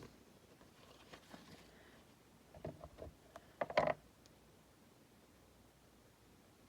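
Quiet room tone broken by a few short handling knocks and rustles, clustered about three to four seconds in, as paper and card are moved about on the work desk.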